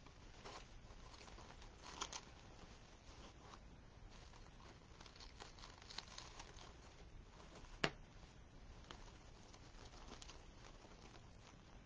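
Faint rustling and crinkling of wreath ribbon as it is handled and adjusted, with one sharp click about eight seconds in.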